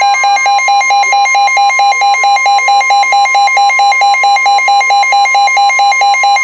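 A weather radio receiver's alert alarm beeping rapidly and loudly, about four or five beeps a second, over a steady high tone: the NOAA Weather Radio warning alarm tone that announces an incoming warning.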